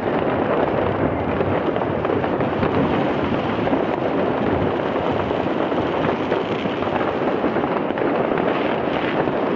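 Massed New Year's Eve fireworks, rockets and firecrackers going off all around at once, a dense unbroken din of many overlapping bangs and crackles at a steady level.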